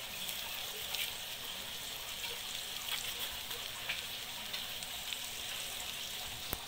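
Eggs, burger patties and onions frying in an open double-sided frying pan on a gas burner, a steady sizzle with a few small pops.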